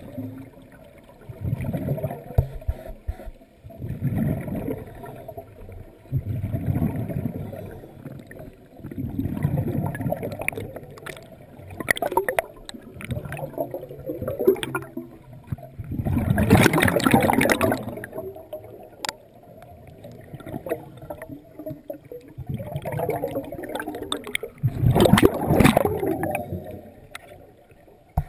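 Scuba diver breathing through a regulator underwater: bursts of exhaled bubbles gurgling every two to three seconds, with two louder bursts around the middle and near the end.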